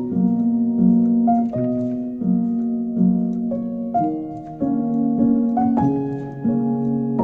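Slow piano music: single notes and chords struck every second or so and left to ring.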